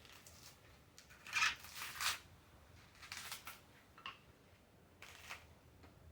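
Fibrous coconut husk being pried and torn away from the shell: scratchy, rasping tears in several short bursts, the loudest two about a second and a half and two seconds in.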